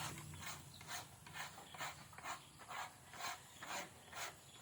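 Rabbit chewing food: a regular rasping crunch about twice a second.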